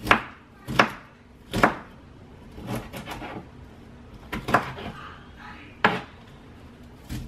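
Kitchen knife chopping broccoli on a plastic cutting board: sharp chops at uneven spacing, some single and some in quick runs of two or three.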